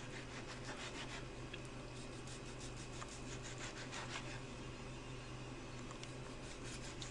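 Chef's knife sawing through a seared beef steak on a plastic cutting board: faint repeated scraping strokes, with light taps as the blade meets the board.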